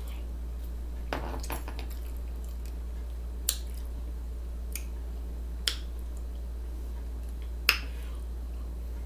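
Mouth sounds of eating a sandwich: a short soft rustle about a second in, then a few sharp wet smacks spaced about two seconds apart, the last the loudest, over a steady low hum.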